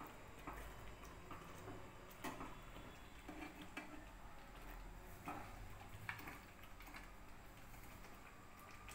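Faint, irregular taps and scrapes of a steel spoon stirring thick chickpea curry in a non-stick kadai.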